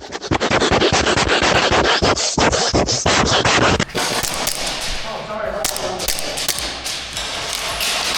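Rough rubbing and scraping right on the microphone with a dense patter of clicks, loudest for about the first four seconds and then dropping to a lower steady scratching.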